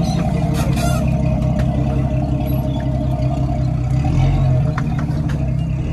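Jeep engine running steadily at low revs, swelling briefly about four seconds in, with scattered knocks and rattles over it.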